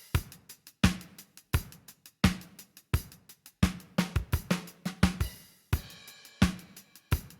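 A drum kit loop playing a steady beat of kick, snare and hi-hat/cymbal hits, used as a demo track. Partway through, a brief ringing pitched sound joins the drums.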